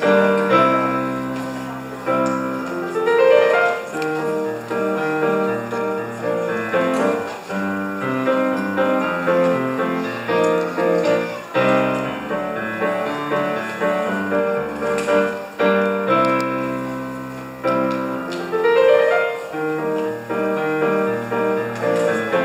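Piano music playing continuously. A fast rising run sweeps upward about 3 seconds in, and again near the end.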